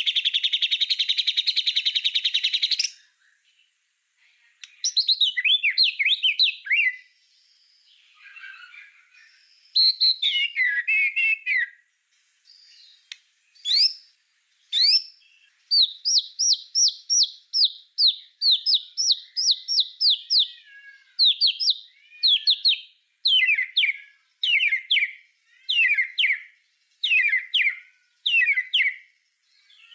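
White-rumped shama (murai batu) singing: a rapid buzzy rattle for the first three seconds, then varied whistled phrases, a quick run of descending notes near the middle, and short separate phrases about once a second toward the end.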